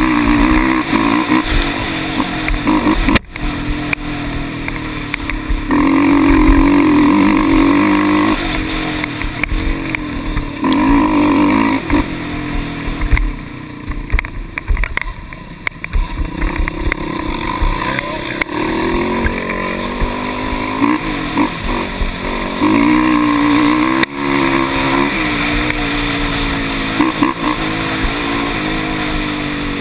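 Quad ATV engine running on the trail under changing throttle, its pitch rising and falling as it accelerates and backs off. It eases off for a few seconds about halfway through, and the sound cuts out for an instant twice.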